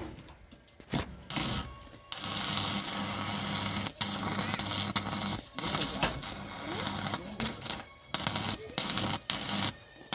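Electric arc welder cutting through corrugated metal sheet: a steady crackling, sputtering arc over a low hum. The arc breaks off and is struck again several times.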